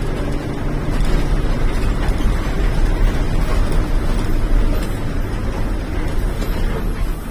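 Diesel engine of a state transport bus running steadily while under way, with road noise, heard from inside the bus.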